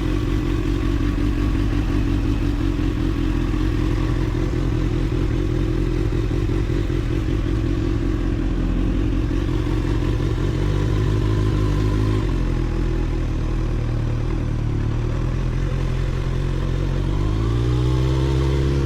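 2024 Kawasaki ZX-6R's inline-four engine running steadily at low revs, its note shifting about twelve seconds in; near the end the revs climb smoothly as the bike accelerates.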